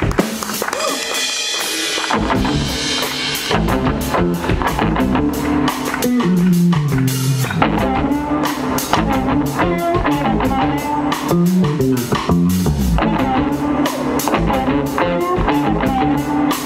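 Live electric blues band playing: electric guitars over bass guitar and a drum kit keeping a steady beat. The bass and kick drum come in about two seconds in.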